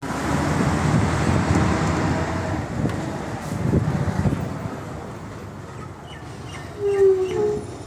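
Bus on the move: steady engine and road rumble with a hiss, starting abruptly, loudest in the first couple of seconds and then easing off. A short pitched tone sounds near the end.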